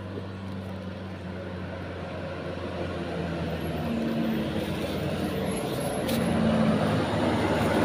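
A motor vehicle's engine approaching, growing steadily louder.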